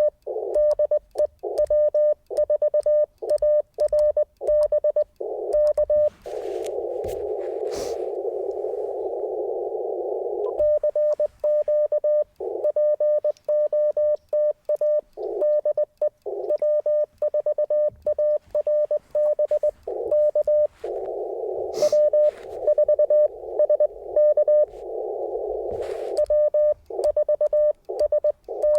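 Morse code keyed on an Icom IC-705 ham radio transceiver: a single steady mid-pitched sidetone beeping out fast dots and dashes. About six seconds in, and again about 21 seconds in, the keying stops for several seconds of receiver hiss through a narrow CW filter, as the operator listens between transmissions.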